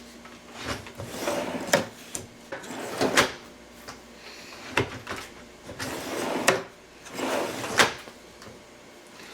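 Kitchen drawer on new full-extension ball-bearing slides being pulled out and pushed in several times: a rolling run of the slides on each stroke, each ending in a sharp click or knock.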